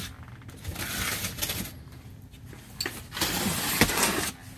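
Box cutter slicing through packing tape along the seam of a large cardboard box, two long scraping strokes with a few clicks between.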